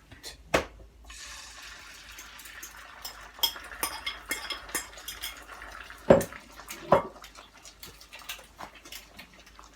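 Beaten eggs poured into a pan of hot oil, sizzling from about a second in and slowly dying down, with clinks of a utensil against the pan and bowl and two louder knocks past the middle.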